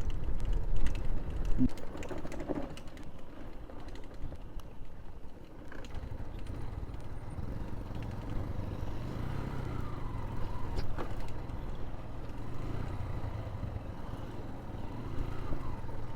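Motorcycle engine running steadily. The first two seconds carry a louder rough rumble and a few knocks, and a steady low engine hum settles in from about six seconds in.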